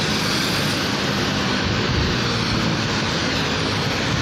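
Busy road traffic: motorcycles and cars passing, a steady mix of engine and tyre noise.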